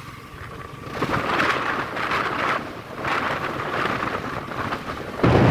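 Wind buffeting the microphone on a moving motorcycle, with road and engine noise beneath. The low wind rumble jumps suddenly louder about five seconds in.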